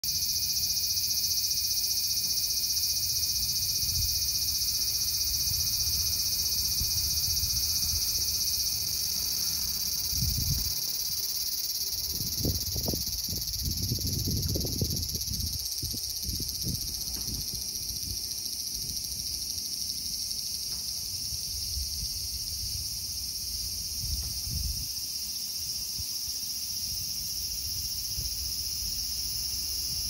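Japanese cicadas (semi) singing: a loud, continuous shrill buzz that never breaks.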